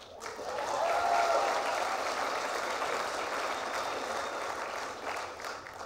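Audience applauding, with a few cheers. It swells in the first second, then tapers off and stops just before the end.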